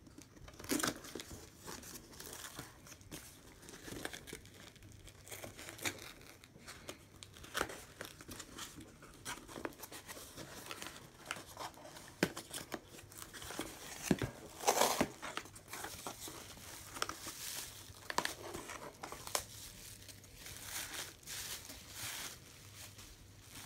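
Duct tape being peeled and torn off a cardboard box and slit with a pocket knife, with the cardboard flaps and packing rustling and crinkling as the box is opened. Irregular short crackles and rips, with one louder burst about fifteen seconds in.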